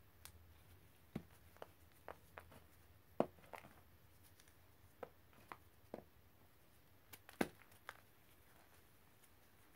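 Gloved fingers crushing dry chalky powder lumps in a pile of loose powder: about a dozen soft, separate crunches and snaps, the loudest about three seconds in and again near seven and a half seconds.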